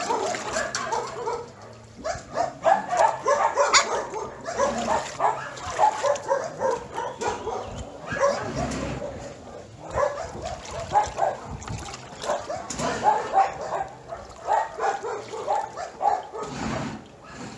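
Many shelter dogs barking and yipping at once in an overlapping chorus, with a short lull near the start and another near the end.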